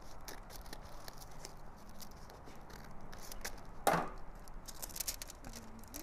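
Scissors snipping through a paper mailing envelope, with crisp paper crackling and rustling as it is cut and opened. A single louder sharp knock comes just before four seconds in.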